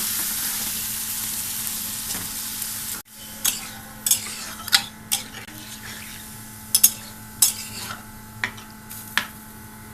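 Eel pieces frying in spiced oil in a kadai, sizzling loudly. About three seconds in the sizzle cuts off and returns much quieter, with a spatula scraping and clinking against the pan several times as the fish is stirred.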